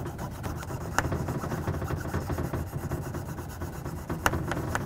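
Sløyd knife blade honed by hand on a flat sharpening stone: steel rubbing on stone in a steady run of strokes, with a couple of light clicks. This is the second side of the edge being honed to raise a burr.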